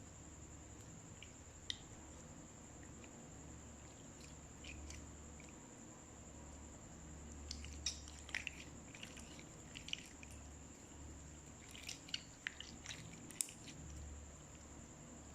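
Slime being squished and kneaded by hand, giving faint sticky clicks and pops that come in two bunches, one about halfway through and one near the end.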